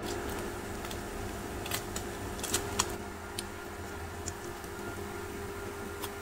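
Cubed luncheon meat frying in a nonstick pan, its fat popping and crackling in irregular sharp ticks, most of them bunched together about two seconds in, over a steady low hum.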